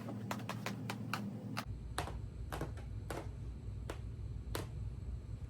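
A run of sharp, irregular clicks and snaps, about a dozen in all, from hand work pulling apart a car seat's cover, over a steady low hum.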